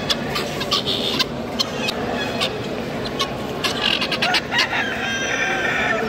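Caged guineafowl and other poultry calling: many short, sharp cackling calls in quick succession, with a longer drawn-out call near the end, over a steady market hubbub.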